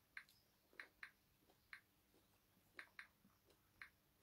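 Faint, irregular clicks of a finger tapping a smartphone touchscreen, about seven in a few seconds, some in quick pairs.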